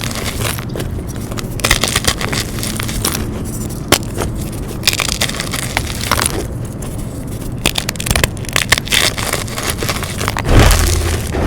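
Dyed gym chalk blocks being crushed and crumbled: dense, irregular crisp crunches and crackles. About ten and a half seconds in comes a louder, heavier crunch with a low thud.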